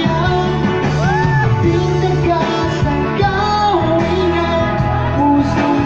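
Live singing through microphones and a PA, a sung melody with gliding pitch over electronic keyboard accompaniment with held chords and a bass line.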